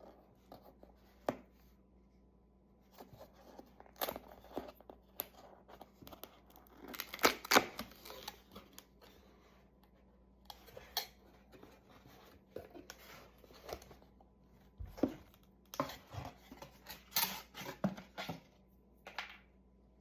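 A mailed package being opened by hand: packaging tearing and rustling, with scattered sharp clicks and taps, loudest about seven seconds in.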